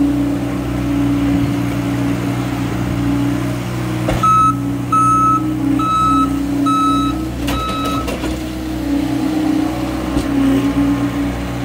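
Diesel engines of a John Deere compact track loader and a mini excavator running steadily, with a backup alarm beeping five times about four seconds in. A few sharp knocks come during the beeping.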